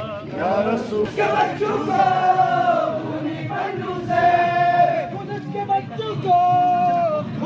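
A crowd of marching protesters chanting slogans together, with drawn-out shouted calls held about a second each, over a constant din of many voices.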